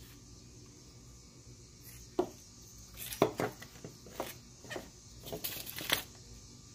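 Irregular light clicks and knocks as a nylon dog collar carrying a plastic electronic-fence receiver and a metal buckle is handled on a wooden workbench. They start about two seconds in and come in a loose run until about six seconds.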